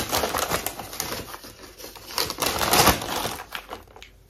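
A brown kraft paper bag rustling and crinkling as it is handled and opened, with the paper inside it crackling too. The crinkling is loudest about two to three seconds in and dies away near the end.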